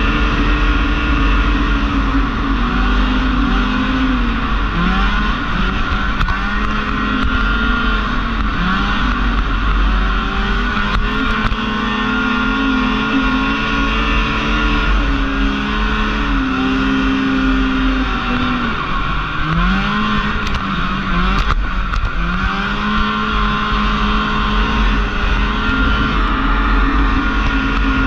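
Snowmobile engine heard from on board, revving up and falling back again and again as the throttle is worked, loud throughout.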